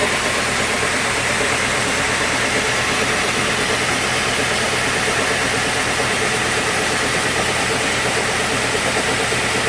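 Sawmill machinery running steadily: a constant engine-like drone with a hiss, holding the same pitch and level throughout.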